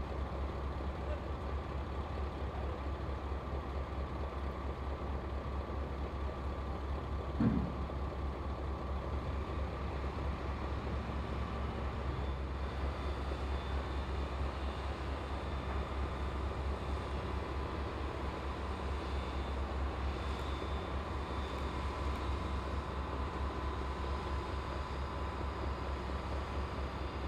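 Truck-mounted mobile crane's diesel engine running steadily as it lifts a heavy load, a low pulsing drone with a faint steady whine above it. A single knock sounds about seven seconds in.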